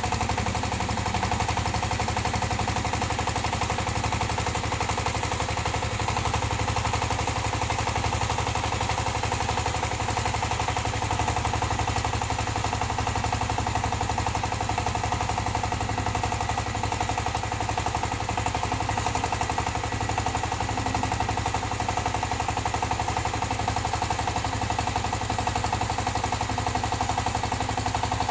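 Small diesel engine of a mini crawler tractor running steadily with a fast, even knock, while its hydraulic backhoe arm is worked.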